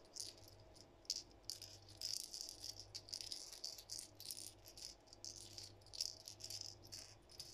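DUO Realis Pencil 65 topwater pencil lure shaken in the hand, its internal rattle balls clattering in quick, uneven bursts of small clicks. A faint, jingling rattle.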